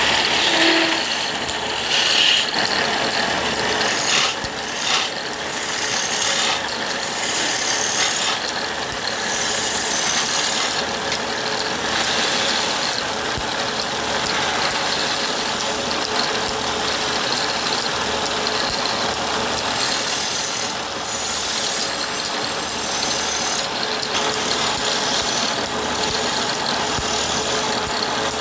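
Wood lathe running, a turning tool scraping and cutting the spinning wood in a steady, hissing grind over a faint motor hum, with a few brief louder catches in the first few seconds.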